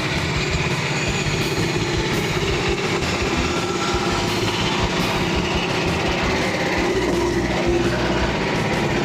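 Engine-driven portable band sawmill running steadily, its Stellite-tipped band blade sawing through a log.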